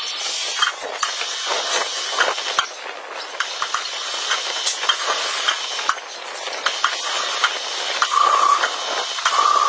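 CNC lathe cutting metal: a steady hiss with many sharp crackling clicks, and a brief high steady whine twice near the end.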